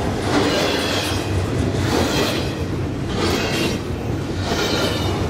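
Double-stack intermodal container train's well cars rolling past: a steady rumble and clatter of steel wheels on the rails, swelling with a hiss about once a second as each set of wheels goes by.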